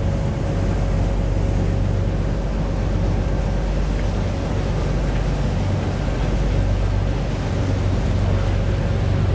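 A large party fishing boat's engines run at a steady low drone as it cruises, with water wash and wind noise on the microphone.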